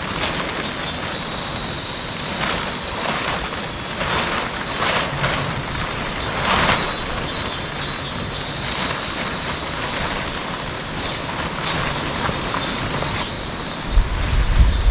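Outdoor campsite ambience: a steady rush of river water under a high-pitched chirping that comes in quick repeated pulses and in longer unbroken buzzing stretches. A few low thumps near the end.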